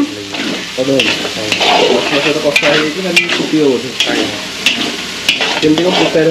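Food sizzling in hot oil in a pan while a metal ladle stirs it, clicking and scraping against the pan about every half second.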